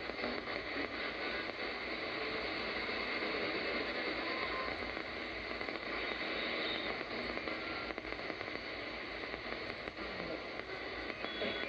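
Shortwave static and hiss from a DSP SDR (Malachite clone) receiver in AM mode as it is tuned up through the 49-meter band between stations, with a few brief, faint whistling tones along the way.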